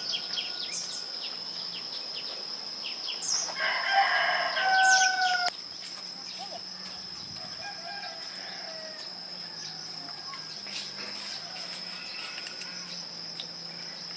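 A rooster crows once, a loud call of about two seconds starting some three seconds in, over a steady high-pitched drone of insects.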